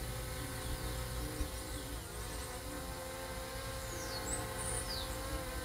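Multirotor camera drone hovering with a steady buzzing hum of several tones. A few short falling bird chirps are heard near the end.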